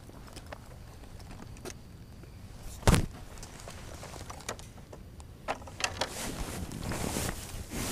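Handling noise from fishing rod and tackle at a metal bridge railing: one sharp knock about three seconds in, then a few smaller clicks and rustling.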